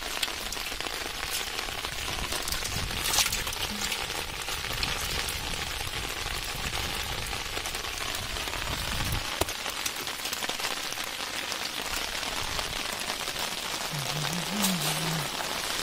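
Steady rain pattering on shallow floodwater: an even hiss flecked with many small drop clicks.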